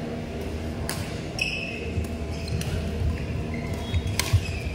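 Badminton rally: rackets strike the shuttlecock three times, about a second and a half apart, with court shoes squeaking on the floor between hits. A steady low hum runs underneath.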